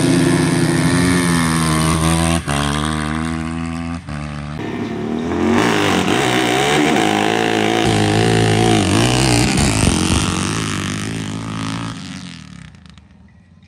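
Dirt bike and ATV engines revving hard on a drag-race launch, the pitch climbing and dropping through gear changes. The sound fades near the end as they pull away.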